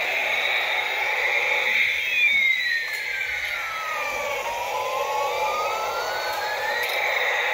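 Battery-operated toy helicopter playing its electronic siren sound effect: a slow wailing tone that falls for about two and a half seconds, then rises again. Under it runs a steady whir as the toy's small motor drives it around.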